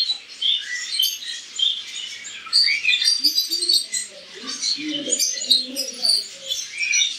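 Many small caged finches chirping together, a dense run of short, high, overlapping chirps and tweets.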